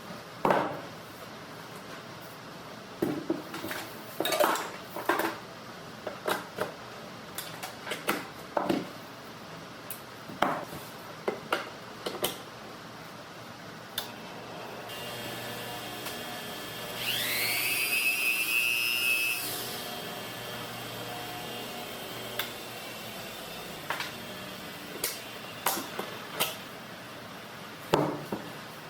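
Scattered clicks and knocks from handling tools and parts. About two-thirds of the way through, a brief whirring rises in pitch and then holds for a couple of seconds.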